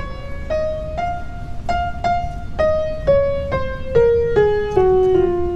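Upright piano played one note at a time: a slow single-line melody, about two notes a second, that climbs a little and then steps down, with the last few notes struck harder.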